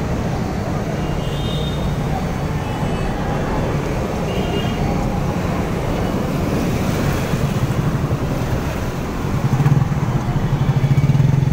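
Road traffic in a flooded street: vehicle engines running, with water sloshing under wheels. A bus's engine rumbles louder close alongside from about nine seconds in.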